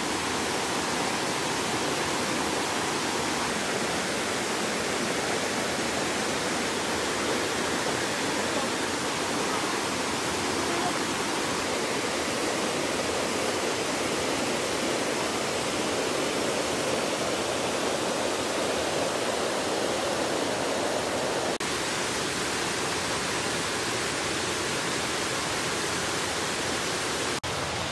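Mountain stream rushing over rocks and small waterfalls: a steady, even rush of water. The sound shifts slightly about three-quarters of the way through.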